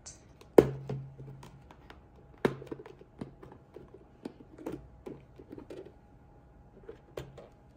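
Hard plastic storage compartment knocking and clicking as it is slid out of a plastic caddy, set down on a table and its clip-shut lid handled. A sharp knock comes about half a second in, another around two and a half seconds, then lighter scattered clicks.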